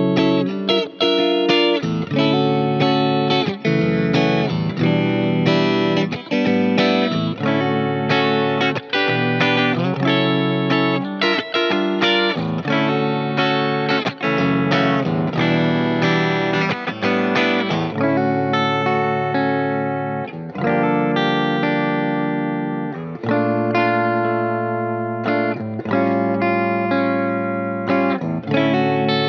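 Ibanez Q52 headless electric guitar played over a backing track. Chords and notes change about once a second, with longer sustained chords in the second half.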